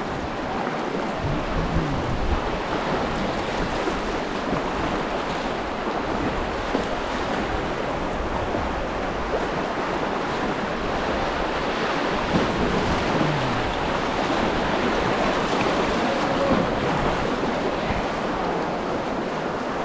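Steady rush of creek water flowing around a kayak.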